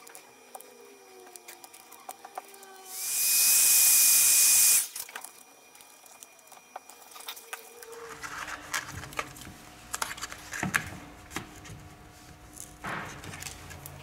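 A tool blowing air hisses loudly for about two seconds, with a steady whine in it, then cuts off sharply. Faint clicks and taps follow.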